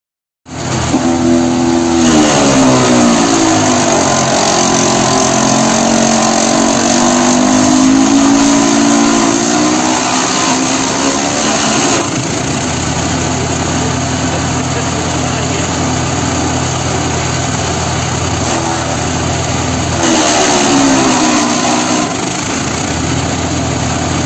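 Gasoline chipper-shredder with a 15 hp engine running hard, its engine note sagging and recovering as it takes load while shredding, from about a second in until about twelve seconds in and again around twenty seconds in, and running steadily in between.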